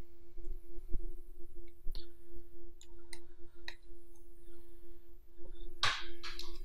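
A steady low electrical hum with a handful of sharp, single computer-mouse clicks scattered through it, and a brief louder noise just before the end.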